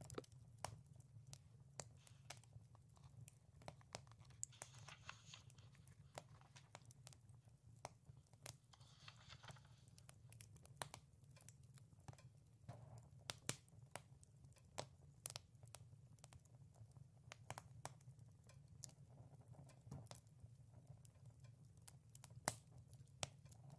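Wood fire crackling, with irregular sharp pops and snaps over a low steady hum. Paper pages of a book are turned with a soft rustle twice, about four and nine seconds in.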